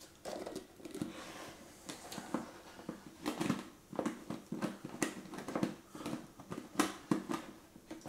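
Plastic screw-on lid of a grease-catch container being twisted and pressed against its rim, giving a string of irregular clicks and scrapes as it fails to thread shut.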